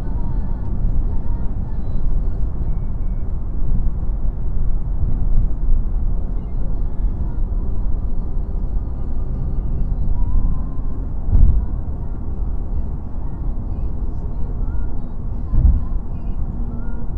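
Steady road and engine noise inside a moving car's cabin at highway speed, with two low thumps, about eleven and fifteen and a half seconds in.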